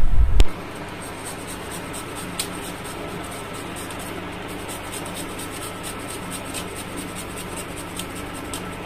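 Garlic clove grated on a small handheld metal grater: a run of light, irregular scratching strokes, after a brief low bump at the very start.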